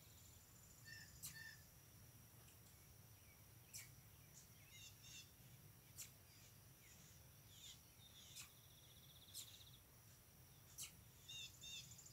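Near silence: faint, scattered high bird chirps and a few short trills over a thin, steady high hiss.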